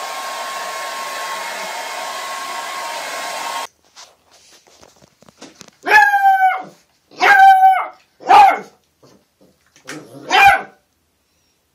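A hair dryer runs with a steady whine and cuts off suddenly a few seconds in. Then a puppy barks four times, in high, drawn-out yaps.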